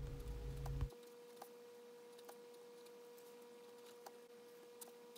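Near silence: a faint steady tone with a few faint ticks, after a low hum that cuts off suddenly about a second in.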